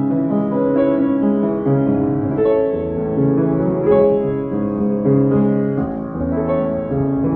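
Piano playing a slow melodic piece, with chords and single notes held and changing about every half second to second.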